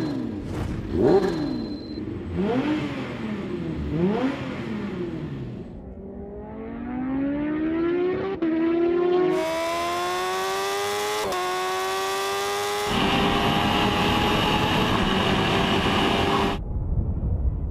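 Kawasaki H2's supercharged 998 cc four-cylinder engine revving up and down several times at the start line, then accelerating hard through the gears. The pitch climbs steadily and drops sharply at each upshift, twice. Near the end a rush of wind noise joins the engine.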